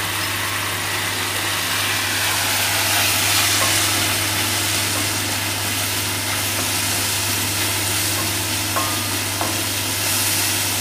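Chopped onion and tomato masala with spices frying in a stainless steel kadai with a light sizzle, stirred and scraped around the pan with a spatula. A steady low hum runs underneath.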